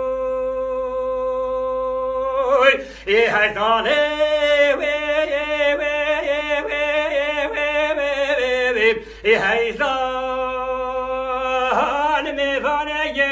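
Solo male voice singing a Kurdish dengbêj song unaccompanied: long held notes, then a fast wavering ornamented run, with short breaths about three and nine seconds in.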